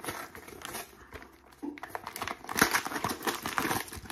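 Cardboard packaging box being torn open by hand: crinkling, tearing rustle, sparse at first and then busy with many sharp crackles from a little under halfway through.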